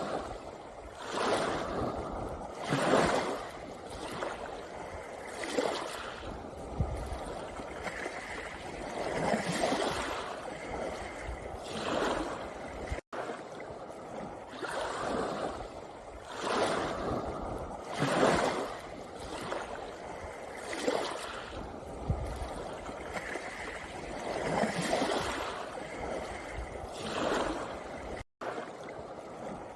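Sea waves washing in and out over a pebble beach, each surge swelling and falling back every two to three seconds. Twice the sound cuts out for an instant.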